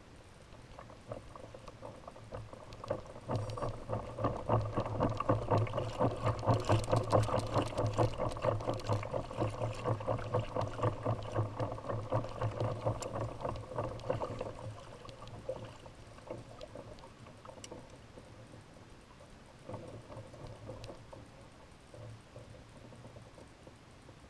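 Fishing reel working under load with a chinook salmon on the line: a rapid clicking whir that builds from about a second in, is loudest in the middle, and fades out around fifteen seconds in, with a couple of fainter bursts near the end.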